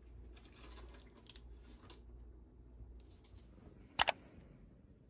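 Faint scattered rustling and light taps, then a single sharp click about four seconds in.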